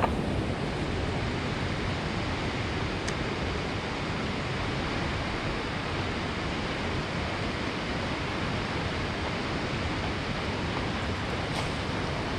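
Fast river current rushing through rapids, a steady rush of water that holds at an even level throughout.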